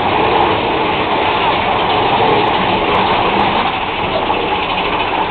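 Big Thunder Mountain Railroad mine-train roller coaster running on its track: a loud, steady rumble and rattle.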